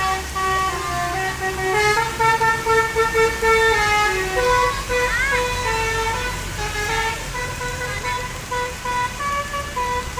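Bus telolet horn (Basuri type) playing a tune in quick stepped notes, with a low engine rumble underneath.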